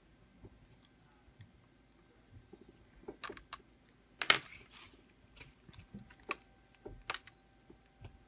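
Scattered small clicks and taps of hobby tools and a plastic model freight car being handled on a table, with a louder clack about four seconds in.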